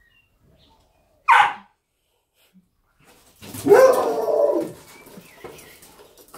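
Dog barking while playing with a balloon ball: one short sharp bark a little over a second in, then a longer drawn-out bark about a second later that bends in pitch and lasts about a second.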